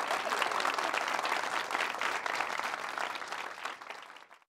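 Studio audience applauding, a dense steady clatter of many hands. It fades away about four seconds in.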